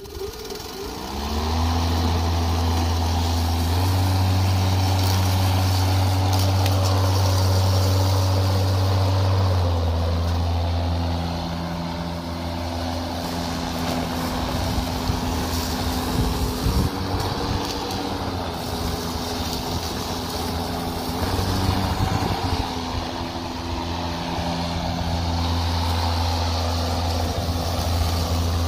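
DeWalt 20V brushless self-propelled lawn mower starting up with a rising whine, then its blade motor running with a steady hum and whine while cutting and bagging thick grass. The pitch steps up about four seconds in, then drops and wavers as the blade takes on the heavy grass.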